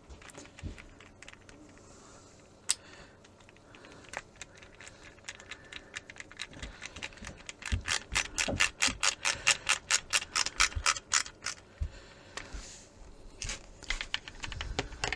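A screwdriver driving a small case screw into the LCR meter. After some faint handling and a single click, a fast, even run of small clicks, about seven a second, starts about halfway in and lasts about four seconds.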